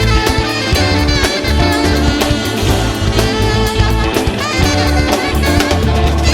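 Background music: an instrumental stretch of a song, with a steady bass line under several instruments.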